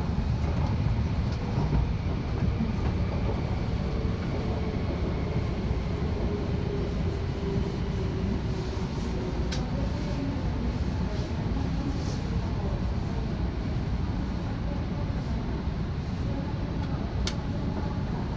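Cabin noise of an E2 series Shinkansen train rolling slowly into its terminal platform: a steady low rumble from the running gear. Around the middle a faint whine drops slightly in pitch, and a few sharp clicks come near the end.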